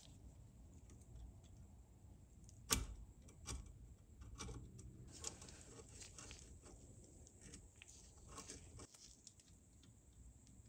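Quiet workbench handling of small metal parts: one sharp click about three seconds in, then scattered lighter clicks and faint rustling.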